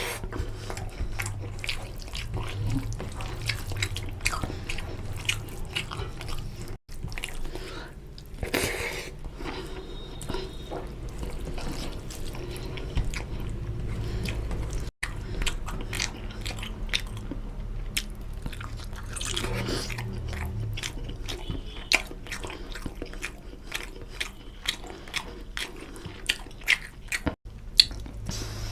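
Close-miked chewing and wet mouth smacks of a person eating chicken curry with rice, many irregular clicks over a steady low hum.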